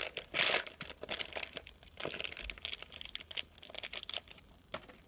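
Small plastic packaging bag crinkling and tearing as it is opened by hand, in irregular rustles with the loudest about half a second in.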